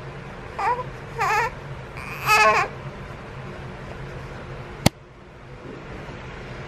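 A baby making three short, high-pitched fussy cries in the first few seconds, the fussing that his mother thinks comes from teething. A single sharp click about five seconds in.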